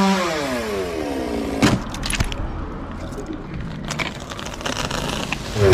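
Chainsaw engine dropping from a high rev to idle, idling with a few sharp knocks, then revving up again near the end.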